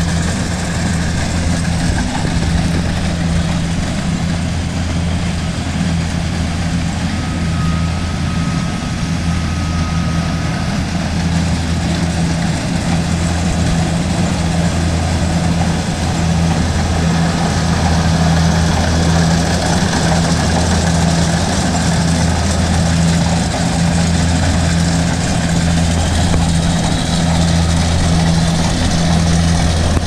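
Kubota rice combine harvester's diesel engine running at a steady hum while it cuts rice, getting a little louder as it comes closer in the second half.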